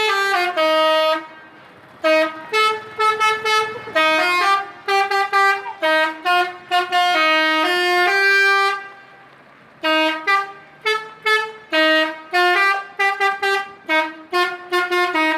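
Indonesian bus 'telolet' horn, a multi-trumpet air horn, playing a tune of short and held notes. It pauses briefly twice, once about a second in and again a little past halfway.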